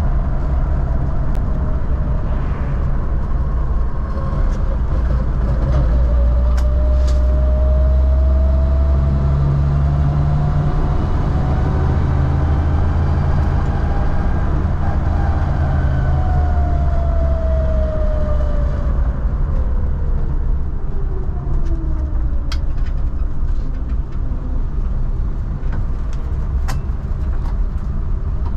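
1952 Willys Wagon under way, its engine and drivetrain running steadily, with a whine that slowly rises in pitch for the first half and then falls off in the second.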